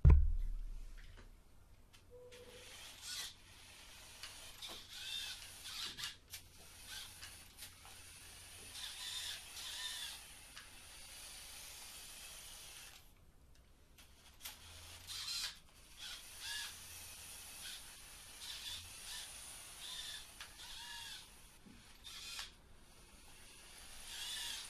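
A Lego Technic RC buggy's electric drive motor and gears whining in many short bursts, each rising and falling in pitch, as it is driven and steered in stops and starts. There is a low thump right at the start.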